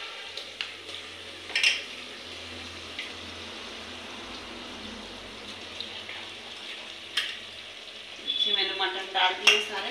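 Raw mutton pieces being dropped by hand into fried onions in hot oil in an aluminium pressure cooker, with a steady sizzle and two sharp clicks about 1.5 s and 7 s in. A brief voice near the end.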